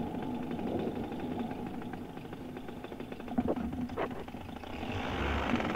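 Paramotor engine running at low throttle, a steady low hum with a fast even pulse, picking up somewhat near the end.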